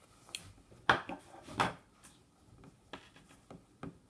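Handling noise as a folding knife is slid into a trouser pocket by its pocket clip: a few sharp knocks and rubs, the loudest about a second in, another just after, and smaller ones near the end.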